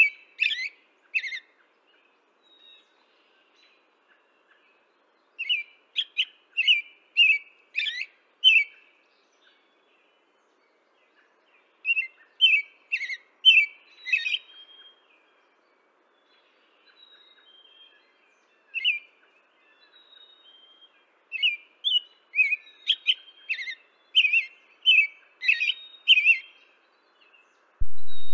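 Small birds chirping: runs of short, high, quickly sweeping chirps, several a second, coming in bouts of a few seconds with quiet gaps between them.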